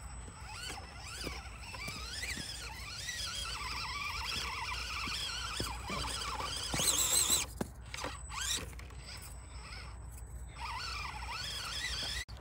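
Radio-controlled scale rock crawler's electric motor and gearbox whining, the pitch rising and falling with the throttle as the truck crawls over rocks, with small clicks of tyres and chassis on stone. A louder, harsher burst of whine about seven seconds in and a shorter one a second or so later.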